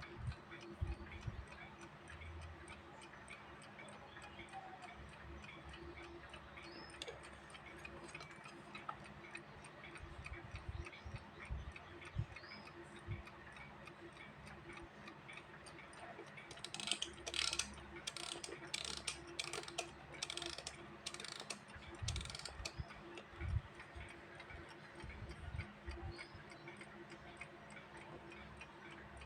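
Vintage mechanical alarm clock ticking steadily and faintly. A few seconds of louder scratchy noises break in just past the middle.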